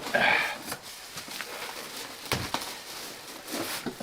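Packaging rustling as parts are pulled from a cardboard box, with scattered light clicks and one duller knock a little past the middle.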